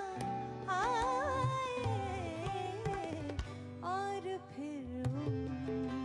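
Background music: a slow Urdu ghazal-style song, a voice holding long ornamented notes over tabla and a steady instrumental drone.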